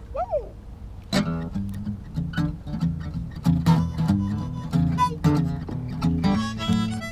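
Acoustic guitar and harmonica playing a blues number together, the guitar coming in with a strummed chord about a second in under the harmonica's held and bent notes.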